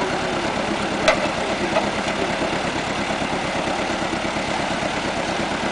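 Toyota Land Cruiser BJ73's diesel engine idling steadily, with one sharp click about a second in.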